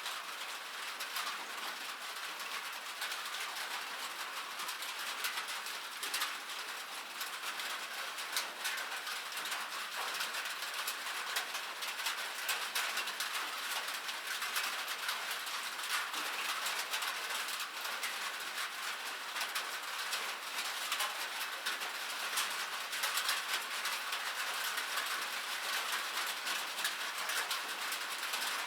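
Rain falling on metal, a dense steady patter of countless small drop ticks over an even hiss.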